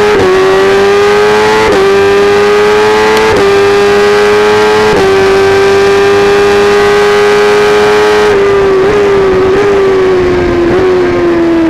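Kawasaki ZX-10R inline-four with an Akrapovic exhaust at high revs, accelerating hard with quick upshifts about every second and a half, each cutting the pitch briefly before it climbs again. About eight seconds in it goes off the throttle and the pitch falls, with short blips as it downshifts for a corner.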